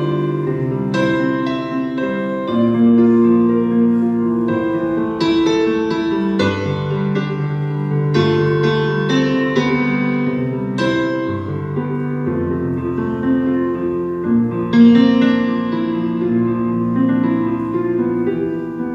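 Roland RD-800 stage piano playing slow held chords on its own, a new chord struck every second or two and left to ring.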